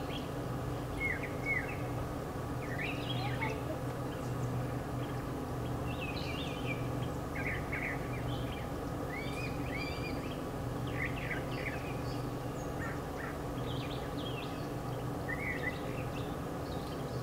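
Songbirds chirping, with short calls coming every second or so over a steady low hum.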